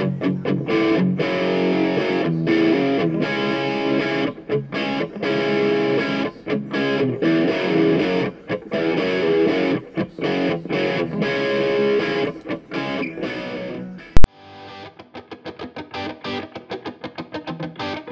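Guitar-led background music with a distorted tone. About fourteen seconds in, a sharp, loud click, after which the music goes on quieter and choppier.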